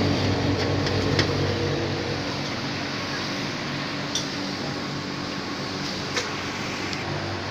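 A steady low mechanical hum from a running motor, with a few faint clicks or taps about one, four and six seconds in.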